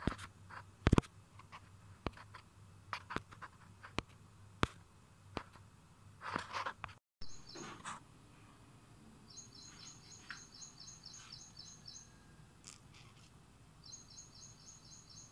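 Irregular sharp clicks and knocks for about seven seconds, then a bird's rapid high trill: two runs of quick chirps about ten a second, the second starting near the end.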